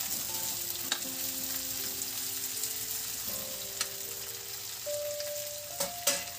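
Chopped okra and potatoes sizzling in hot mustard oil in a metal kadhai as they are stirred with a metal spatula, which clicks and scrapes against the pan a few times. Soft background music with long held notes plays underneath.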